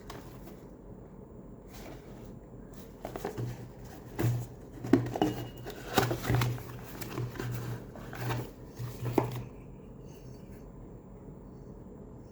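A run of irregular clicks and knocks with a low hum that comes and goes, from about three seconds in to about nine and a half; before and after, only a faint steady background.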